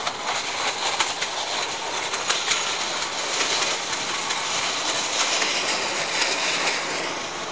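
Narrow-gauge railway wagons and a small diesel locomotive rolling past, steel wheels on the rails making a steady rushing noise with irregular clicks and clatter over the rail joints.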